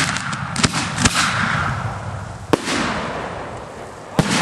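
Fireworks going off with sharp bangs: a quick cluster of reports in the first second, a single bang about two and a half seconds in and another near the end, each trailing off in a hiss and rumble.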